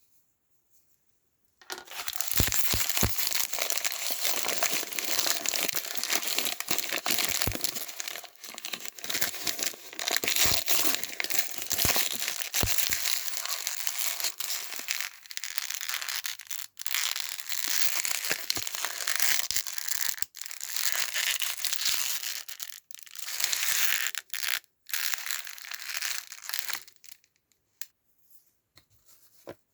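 Crinkly plastic toy packaging being crumpled and torn open by hand, with a few light knocks. It starts about two seconds in and stops near the end, leaving a few faint clicks.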